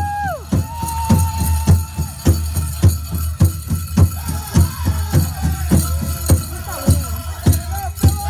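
Powwow drum and singers performing a chicken dance song: the big drum struck in a steady beat a little under twice a second, with high singing voices over it.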